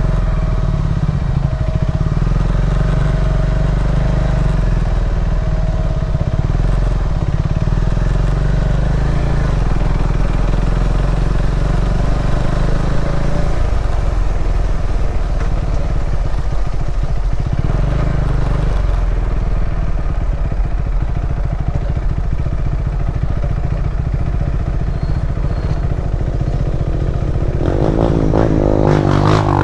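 KTM 390 Adventure's single-cylinder engine running at a steady, even level as the motorcycle is ridden.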